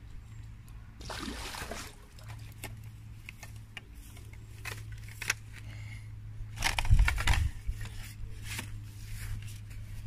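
Rustling and scattered light clicks close to the microphone, with a dull low thump about seven seconds in, over a faint steady hum.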